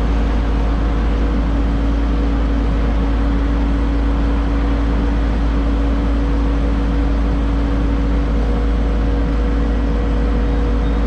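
Excavator diesel engine running at a steady high throttle, a constant low drone with a steady whine over it.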